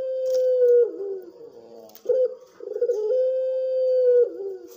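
Puter pelung (Barbary dove) cooing in long, drawn-out phrases: each coo is held on one steady pitch and ends in a short falling note. A held coo tails off about a second in, and a second one starts about two seconds in with a brief note and holds for nearly two seconds before dropping.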